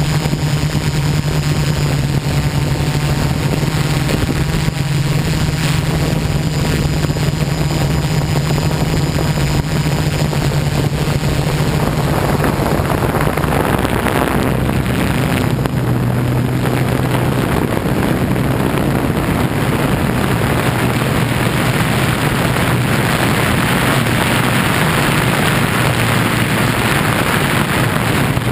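MikroKopter quadcopter's electric motors and propellers droning steadily, recorded from a GoPro on the craft itself. The motor hum shifts a little lower about halfway through, and a rushing hiss grows louder in the second half.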